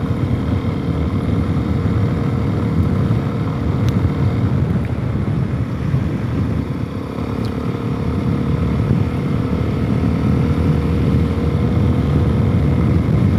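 Suzuki DR-Z400S single-cylinder four-stroke engine running steadily under way, with an aftermarket exhaust and a freshly rejetted carburetor. The engine note eases slightly around the middle and picks up again toward the end.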